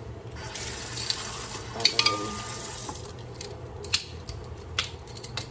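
Light clicks and knocks of a plastic jar of chicken bouillon being picked up and handled: a small cluster about two seconds in, then two single clicks later.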